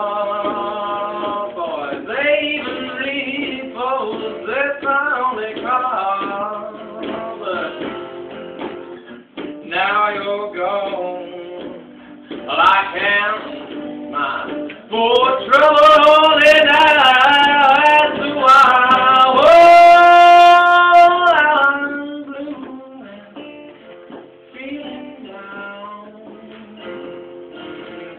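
Blues harmonica solo over acoustic guitar, with bent, wavering notes. It is loudest in a run of long held notes about two-thirds through, then drops back to quieter guitar picking near the end.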